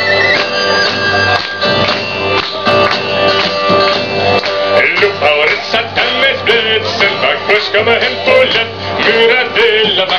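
Live acoustic folk music: a small plucked lute-type instrument and hand-played drums, with a melody line that is held steady at first and turns wavering and ornamented about five seconds in.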